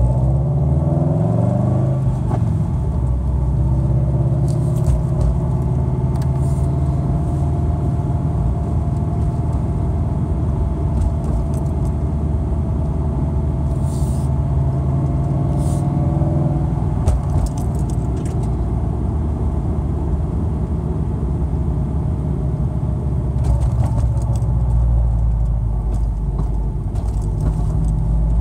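In-cabin sound of a 2013 Scion FR-S's 2.0-litre flat-four with a catless front pipe and Invidia N1 exhaust, driven at light throttle and kept under 4,000 rpm. The exhaust note is low and steady, rising briefly at the start and shifting again near the end. A few faint rattles or clicks come in about a third and halfway through.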